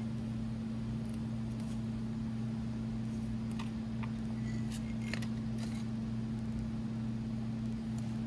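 Steady low electrical hum with a faint background rush. A few light clicks and taps come about halfway through as a ceramic mug is handled.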